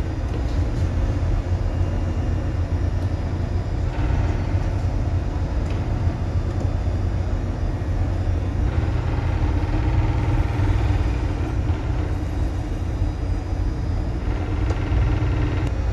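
Ship's engines running with a steady low rumble, heard from inside the bridge as the vessel gets under way slowly.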